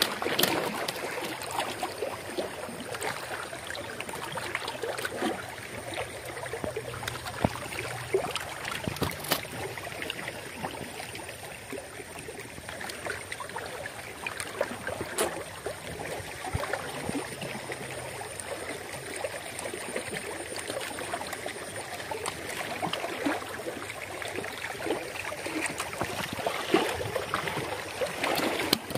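Steady rushing outdoor noise, like wind or moving water, with scattered light knocks and clicks and a thin, steady high-pitched tone throughout.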